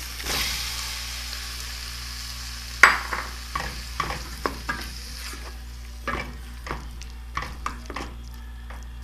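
Diced tomatoes dropped into hot oil with fried onion and garlic in a steel pot: a burst of sizzling that slowly fades. A single sharp knock comes about three seconds in, followed by a wooden spoon stirring and knocking against the pot.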